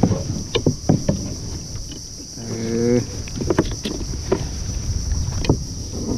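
Irregular knocks and thumps of handling gear and a caught fish on a kayak, with a brief pitched tone about halfway through.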